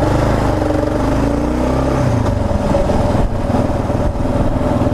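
Kawasaki KLR 650's single-cylinder engine running under way, its pitch rising over the first couple of seconds as the bike accelerates.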